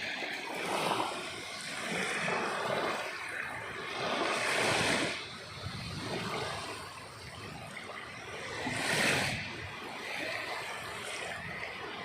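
Sea waves breaking and washing in, a steady hiss of surf that swells and ebbs. The strongest surges come about four seconds in and again near nine seconds.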